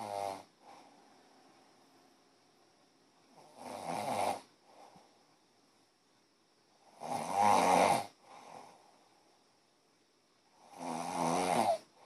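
A sleeping person snoring in a regular rhythm, one snore about every four seconds, each lasting about a second. A fainter short breath follows each snore.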